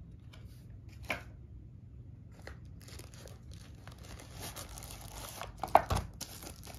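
Unboxing handling: the lid of a small cardboard box is lifted off with a click, then white paper wrapping rustles and crinkles as a handheld tyre inflator is drawn out of the box, with a sharp knock from the handling just before the end.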